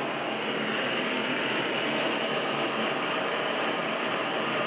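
Hand-held gas torch burning with a steady hiss, its flame heating a brass rod at the bend to soften it for bending.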